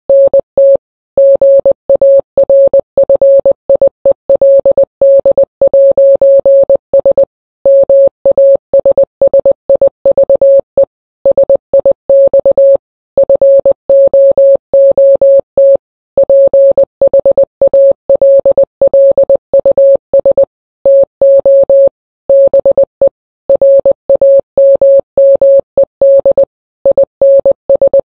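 Morse code sent as a single steady beep keyed on and off rapidly: fast runs of short and long beeps, broken by brief pauses between groups.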